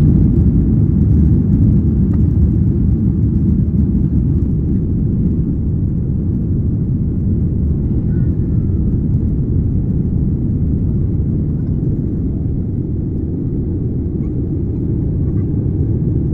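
Airliner cabin noise during the takeoff run and lift-off: a steady low rumble of the jet engines at takeoff thrust and the wheels on the runway, easing off slightly as the plane climbs away.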